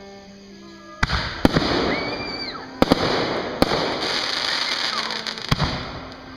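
Fireworks display: sharp bangs of bursting shells, about six of them from a second in, over a dense crackling hiss that fades toward the end.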